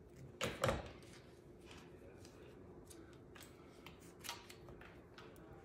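Small paper squares and a liquid glue bottle handled on a tabletop while pieces are glued onto cardstock: scattered light taps, clicks and paper rustles, the loudest a pair of clicks about half a second in.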